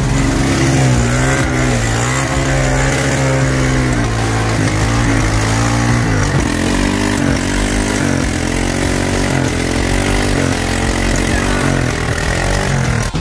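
Quad bike (ATV) engine revving hard, its pitch rising and falling, as the bike churns through deep mud with its wheels spinning.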